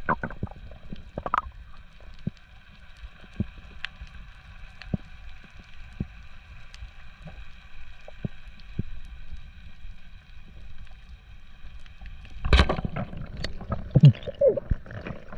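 Underwater sound picked up by a camera in a waterproof housing: a low rumble of water with scattered sharp clicks and crackles, under a faint steady whine of several high tones. About twelve and a half seconds in, a loud burst of rushing, gurgling water noise takes over, with more gurgles near the end.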